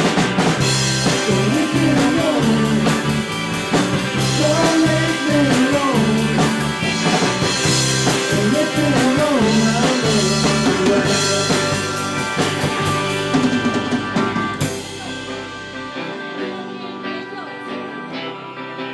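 Rock band playing with drum kit and electric guitar. About fifteen seconds in, a last cymbal crash, then the drums and bass drop out and a quieter guitar carries on.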